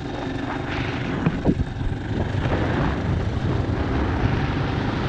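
A motorcycle running at speed, with heavy wind rumble buffeting the microphone.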